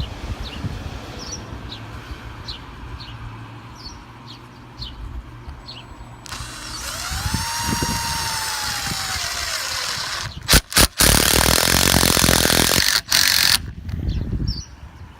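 Power drill driving a screw into a wooden deck railing. The motor spins up with a whine that rises and falls, stops briefly twice, then runs loud for about three seconds as the screw drives home, with a short final burst. Birds chirp faintly before the drill starts.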